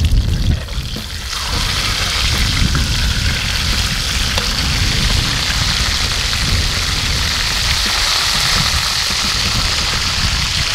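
Whole tilapia shallow-frying in hot oil in a stainless steel pan: a steady, loud sizzle that grows stronger and brighter about a second in.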